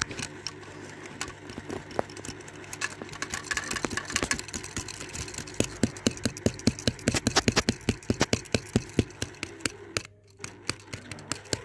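Die-cast toy cars knocking and clattering against each other as one is moved about by hand: a run of sharp clicks, coming fast and loudest through the middle at about five a second, over a steady low hum.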